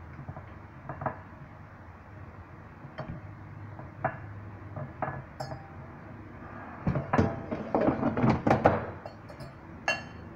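Russell Taylors air fryer basket being handled and slid back into the fryer: a few light clinks and knocks, then a burst of rattling and clattering about seven seconds in, and a sharp click near the end as the drawer seats.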